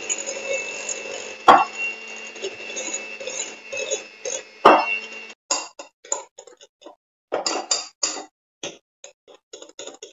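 Electric hand mixer running steadily as it beats pancake batter in a glass bowl, its beaters knocking against the bowl twice. The motor cuts off about five seconds in, followed by short scrapes and clinks at the bowl.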